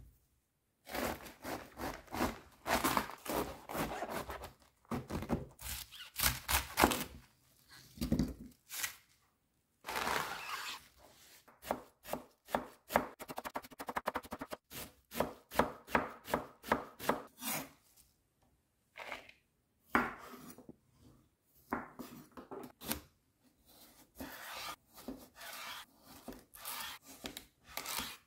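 Chef's knife shredding a savoy cabbage on a wooden cutting board: fast runs of crisp cuts, each stroke ending in a tap on the board. Later come slower, quieter single cuts through a cucumber.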